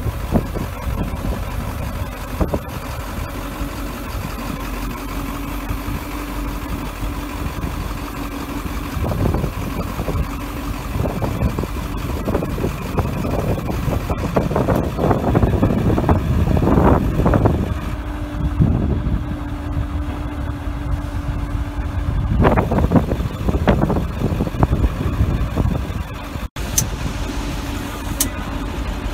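1996 service truck's engine idling while its hydraulic crane is worked to lower and stow the boom: a steady drone with a held hum that comes and goes, and several louder rushes of noise.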